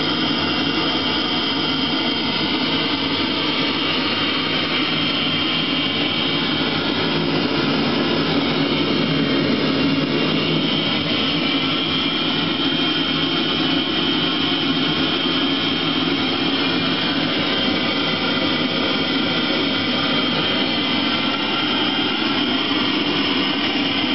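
Eberspächer Hydronic D5WZ diesel water heater running: a steady rushing noise from its combustion air fan and burner, with a thin high whine over it.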